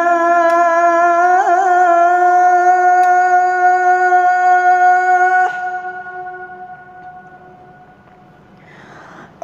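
A male muezzin's voice calling the adhan through the mosque microphone, holding one long sung note at the end of "as-salah" with a brief ornamental turn about a second and a half in. The note stops about five and a half seconds in and fades away over the next few seconds. A short breathy rush comes just before the next phrase begins.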